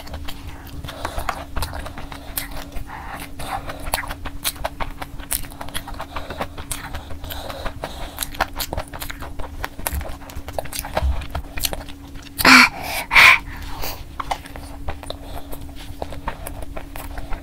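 Close-miked eating of sauce-coated fried chicken by hand: steady wet chewing, lip-smacking and sticky finger clicks. About two-thirds of the way through come two loud, short breaths in quick succession, with a faint steady hum underneath.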